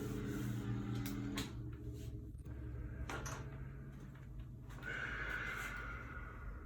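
Motorized massage chair running with a steady hum, then stopping about a second and a half in. A few sharp clicks follow, and a short higher-pitched sound near five seconds.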